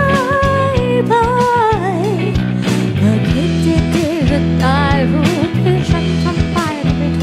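Live pop band playing: a woman singing a melody with held, wavering notes into a microphone over electric guitar and bass guitar, with a steady beat.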